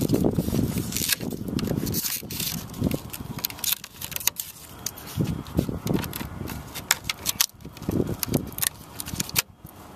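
A small flathead screwdriver prying and scraping at a drilled-out red plastic emblem insert against its chrome surround, with many sharp clicks and cracks as the plastic breaks loose.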